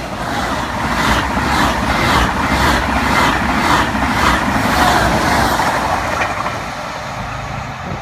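Double-deck TGV high-speed train passing at speed: a loud rushing of air and wheel-on-rail noise with a faint pulse about twice a second as the cars go by, dying away over the last couple of seconds as the tail passes.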